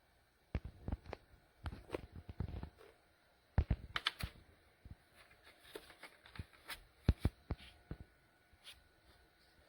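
Irregular light clicks and knocks of handling noise, with sharper clusters of clicks about four seconds in and again about seven seconds in.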